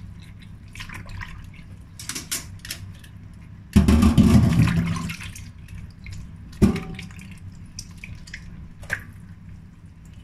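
Hands rubbing and squeezing soaked shiitake mushrooms in a steel bowl of cornstarch water: wet squishing, drips and small splashes, with a louder splash about four seconds in and a sharp knock about a second and a half later.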